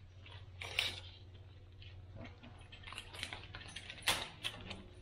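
Irregular small clicks and rustles of hands handling a metal tape measure, with the sharpest click about four seconds in, over a steady low hum.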